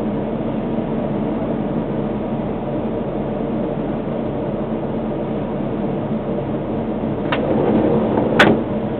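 Steady hum inside the cab of a stationary Tatra K2 tram. Near the end a windscreen wiper sweeps across the wet glass, ending in a sharp click.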